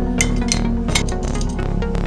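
Background music with plucked notes and a steady percussive beat.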